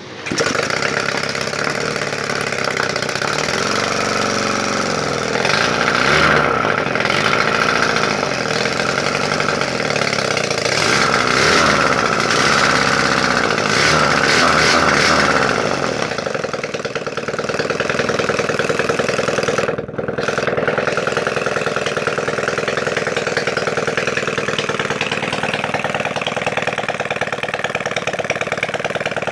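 Home-built 450cc two-cylinder engine made from Yamaha Scorpio parts, running on a stand with no exhaust pipes fitted. It catches right at the start, is revved up twice, dips briefly about twenty seconds in, then idles.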